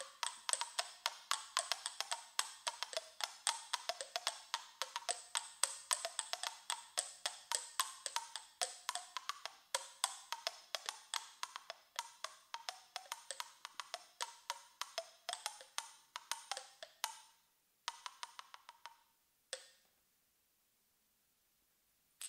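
Pebbles struck together in front of the open mouth, with the mouth as a resonator: quick, rhythmic stone clicks whose ringing pitch shifts up and down as the mouth changes shape. They break off near the end into a short last run and one final click.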